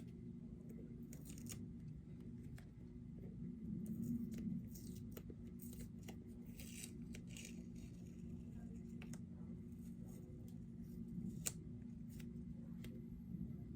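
Tape being peeled off a freshly painted sneaker sole: faint, scattered crackles and small clicks over a steady low hum.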